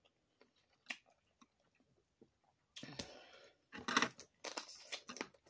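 Boiled crawfish shells being cracked and peeled by hand, a few faint clicks, then louder close-up eating sounds from about three seconds in as the crawfish is chewed.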